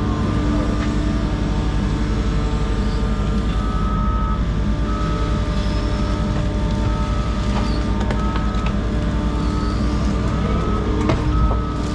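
Diesel earthmoving machinery running steadily under work, with a reversing alarm beeping repeatedly at a steady pace.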